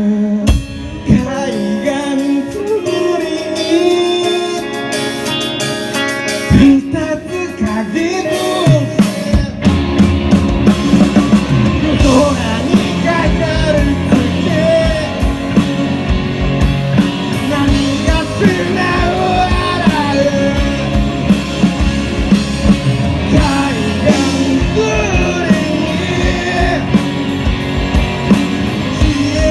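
Rock band playing live: a sparser passage for about nine seconds, then the drums and bass come in and the full band plays on.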